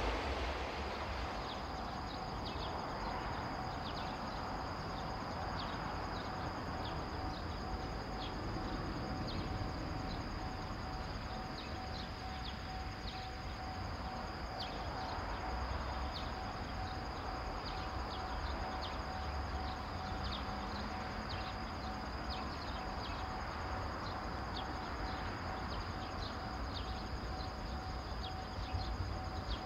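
Outdoor ambience: a steady hiss and low rumble with frequent short, high chirps. A faint steady tone runs from about a second in.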